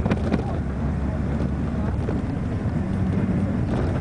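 Steady low rumble of a vehicle's engine and road noise, heard from a vehicle moving through city traffic.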